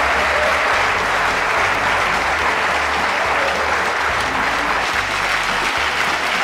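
Theatre audience applauding steadily for the actors' curtain-call bow.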